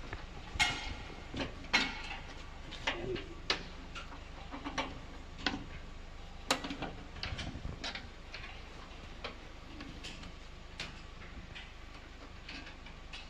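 Irregular metallic clicks and knocks as a stainless steel folding table frame is shifted and clamped down onto an aluminium checker-plate floor. The knocks come thick for about eight seconds, then thin out to a few single clicks.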